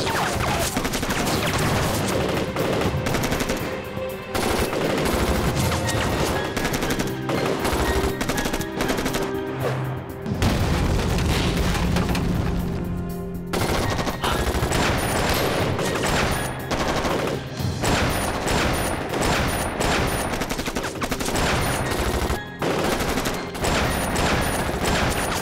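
Staged film gunfire: many shots in rapid, overlapping succession, with a dramatic music score underneath.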